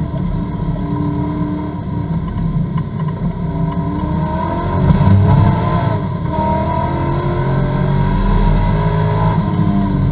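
GT2 race car's engine heard from inside the cockpit, accelerating hard out of a slow corner and rising in pitch through the gears, with a gear change about six seconds in.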